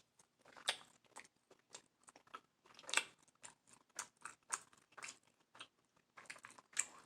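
Close-miked chewing: a string of short, irregular wet clicks and small crunches from a mouth eating seafood, with a few louder ones.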